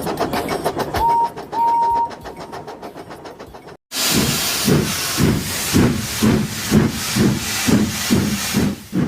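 Steam engine chuffing: steady puffs of steam with hiss, about two a second, starting after a brief drop to silence about four seconds in. Before that come two short high toots.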